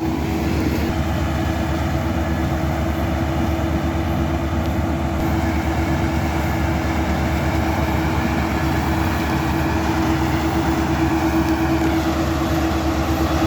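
Half-feed combine harvester running steadily: an even engine and machinery drone with a constant tone held throughout.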